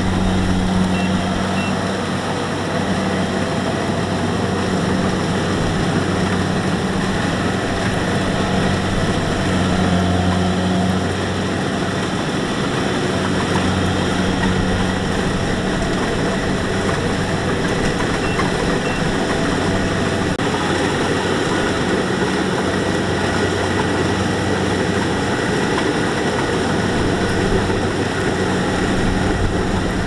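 Kubota combine harvester's diesel engine running steadily, a low hum that swells and fades a little over a constant wash of machine noise.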